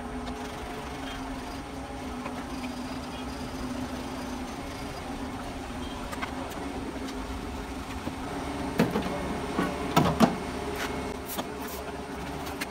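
A steady machine hum, with clicks and knocks about nine to ten seconds in from hand work on a car's stripped inner door panel and plastic door module.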